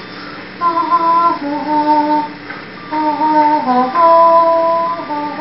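A short, high melody of about six or seven held notes, each steady in pitch, beginning a little over half a second in.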